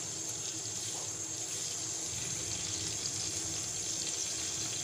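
Stuffed round gourds (tinda) sizzling steadily in hot ghee in a frying pan on a low flame, while they are turned over to fry the other side.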